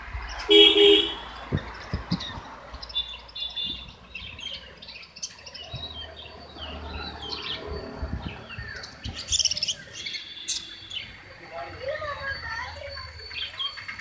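A flock of caged budgerigars chirping and chattering continuously in quick, overlapping calls. About half a second in, a brief, louder horn-like toot stands out.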